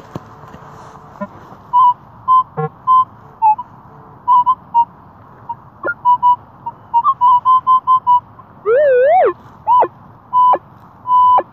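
Metal detector pinpointer probe beeping in short, irregular beeps at one pitch as it is worked through the loose soil of a dig hole, signalling a metal target nearby. About nine seconds in, a longer electronic tone wavers up and down, followed by a few short swooping tones.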